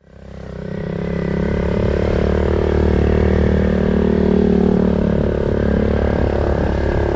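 Motorbike engine running steadily while the bike is ridden along a dirt track, fading in over about the first second.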